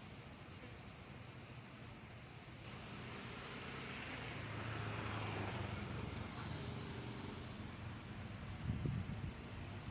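A road vehicle passing by: its noise swells to a peak about five seconds in, with a low engine hum at the loudest point, then fades.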